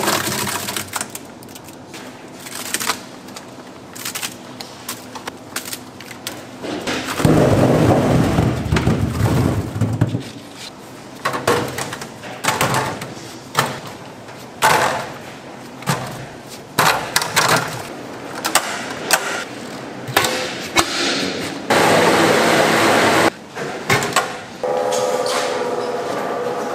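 A stainless-steel food-grinding drum in a kimchi factory, with a steady machine hum around the start and again near the end. In between come irregular knocks, clatters and longer scraping, rushing noises of metal and plastic as the ground white paste is handled and tipped into plastic crates.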